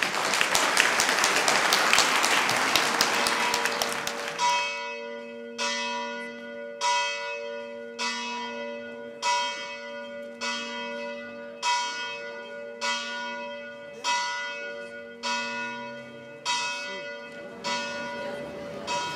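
Applause for about four seconds, then a church bell tolling in slow, even strokes, a little more than one a second, each stroke ringing on into the next.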